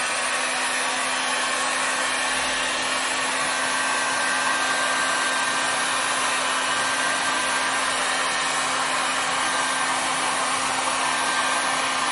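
Electric heat gun blowing steadily, a rushing airflow with a steady low hum, heating scraps of Worbla thermoplastic to soften them for sculpting.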